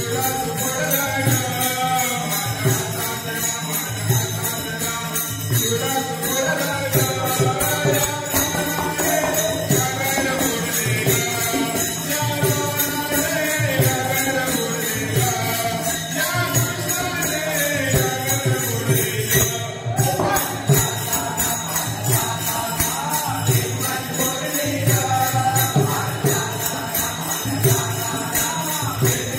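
Marathi devotional bhajan: voices singing a repeating melody over a steady drum beat and the regular clash of small hand cymbals, with a brief break about twenty seconds in.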